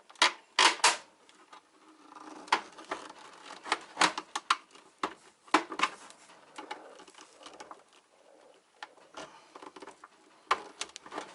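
Screwdriver prying and scraping at a UPS's plastic case cover, with irregular sharp clicks and knocks as the blade levers against the snap-fit clips.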